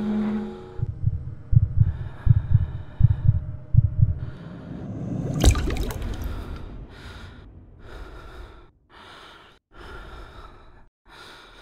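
A water drop from a tap falls into a sink, landing with one sharp splash about five and a half seconds in. Before it come low thumps in pairs. After it, a man gasps and breathes heavily in short breaths about once a second.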